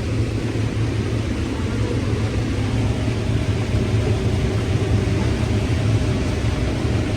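New Holland combine running steadily while harvesting corn: a constant low machine rumble with no change in pitch or level.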